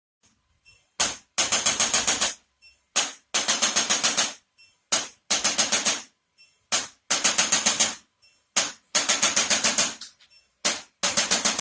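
Rapid mechanical clicking in repeated runs: a single click, then a quick string of about seven clicks over about a second, repeating roughly every two seconds.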